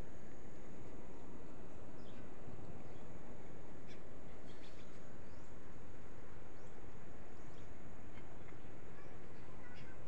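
Outdoor ambience: a steady low rushing noise with scattered short bird chirps throughout and a thin steady high tone above it.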